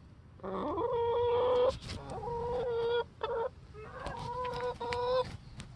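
A chicken calling in several long, drawn-out squawks in a row, each held at a steady pitch, the first sliding up into it.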